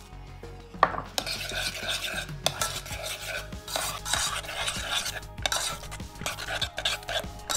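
Peanuts dropping into a stainless steel saucepan with a sharp clatter about a second in. Then they are stirred into thick caramel, with irregular scraping and clicking against the pot.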